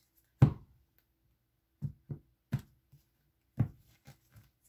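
A deck of tarot cards being tapped, cut and set down on a woven mat: about seven short knocks. The first, about half a second in, is the loudest.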